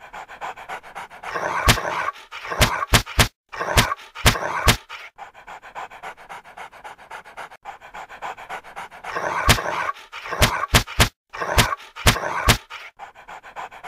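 A dog panting heavily in two bouts, each broken by a quick run of sharp slaps from its jowls flapping as it shakes its head and flings slobber.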